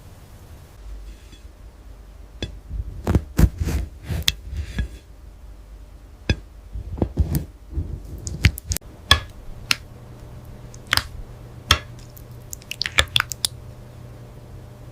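Aloe vera leaf and gel being cut and squished: irregular sharp, crisp snaps mixed with short wet squishes, coming in three clusters with pauses between.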